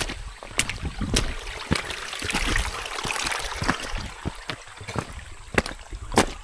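A shallow mountain stream running over rocks, with hiking-shoe footsteps knocking and splashing on wet stones as someone climbs up through the streambed.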